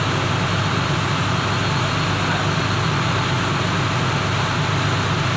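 Ship's engine running steadily: a constant low drone with a broad hiss over it.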